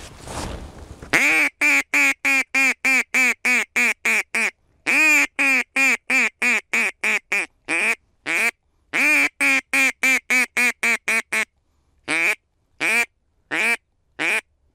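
Mouth-blown duck call sounding a hen mallard's quack, calling to a passing flock of ducks. It goes in three quick runs of about three loud quacks a second, then slows to four spaced single quacks near the end.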